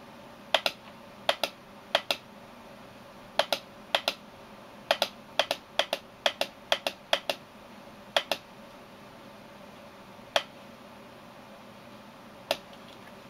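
Computer mouse button clicking: about a dozen press-and-release pairs, each a quick double click, in an irregular run, then two single clicks later on.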